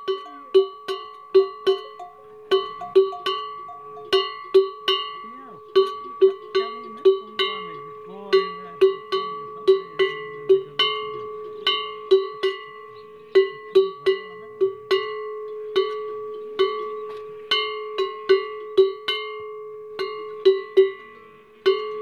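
Large metal camel bell, newly repaired, shaken by hand so its clapper strikes in uneven runs, about two or three strokes a second. Each stroke rings on as a low clanging tone with a higher tone above it, carrying over into the next strike.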